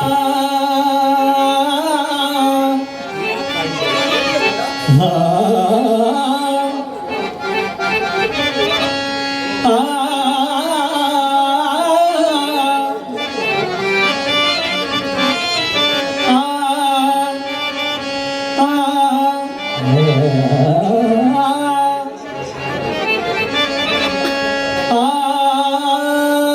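Harmonium playing a sustained melodic introduction in a raga, with tabla accompaniment.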